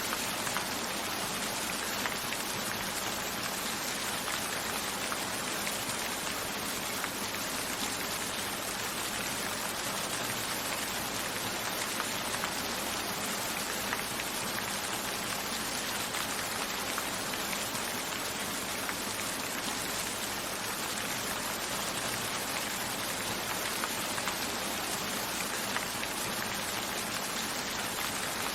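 Steady rain falling, with scattered single drops ticking against a window pane.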